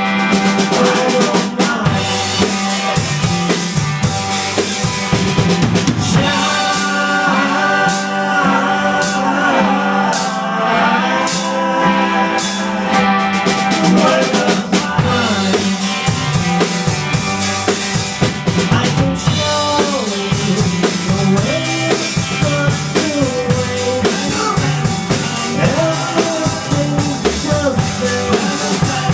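A band playing a song without vocals: a drum kit keeps a steady beat with kick drum, snare and rimshots, under bass and melodic lines that bend in pitch.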